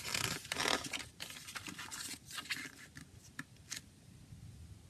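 Paper rustling as a CD booklet page is turned by hand, a crackly rush lasting about two and a half seconds, followed by two light clicks, then quiet.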